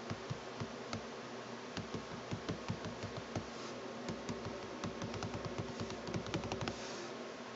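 Fingertips tapping on a tablet touchscreen: a quick, irregular run of soft taps over a faint steady hiss.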